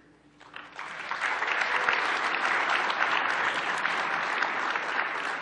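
Audience applauding. It starts about half a second in, builds to full strength within a second, then holds steady.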